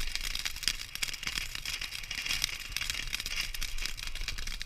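A consumer firework crackling: a dense, rapid run of small sharp pops over a hiss.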